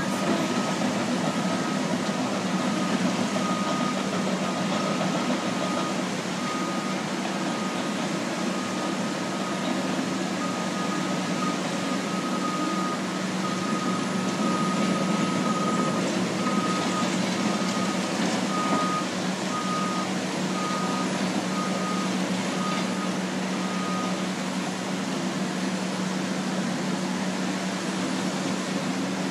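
Backup alarm of heavy earthmoving equipment (bulldozers and a loader) beeping over and over, over the steady drone of diesel engines; the beeping stops a few seconds before the end.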